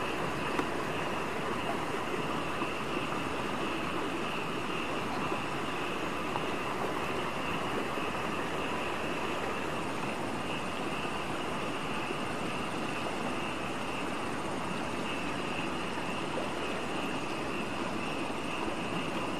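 Steady night-time outdoor ambience: a continuous chorus of insects with a high, even buzz over a constant hiss, with a second, higher insect trill joining about halfway through and a few faint splashes.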